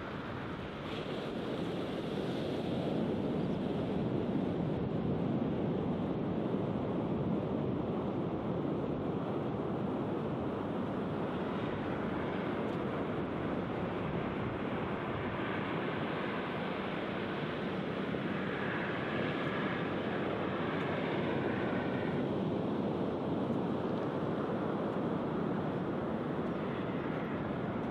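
Steady roar of surf washing onto a sandy beach.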